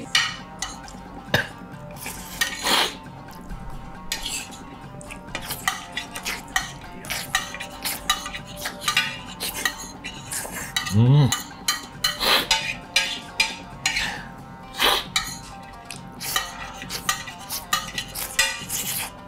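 Metal spoon scraping and clinking rapidly against a large plate as the last of a plate of curry and rice is shovelled up at speed. There is one short low voice-like sound a little after the middle.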